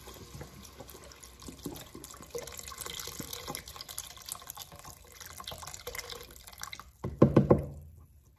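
Chicken stock pouring in a stream from a carton into a pot of soup ingredients, a steady splashing and trickling. About seven seconds in there is a brief louder burst, then the pouring stops.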